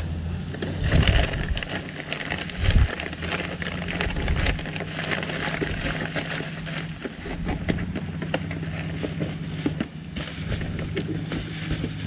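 A steady low engine hum, with scattered clicks and knocks of small metal parts being handled.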